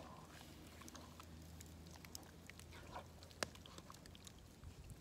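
Quiet, scattered clicks and knocks of a wooden spoon stirring thick chili in a cast-iron Dutch oven, the sharpest knock about three and a half seconds in, over a low steady hum.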